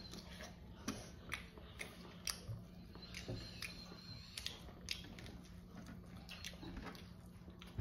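Faint eating sounds: chewing, lip and finger smacks, and the soft crackle of shrimp being peeled by hand, as a dozen or so irregular short clicks. A faint steady hum underneath.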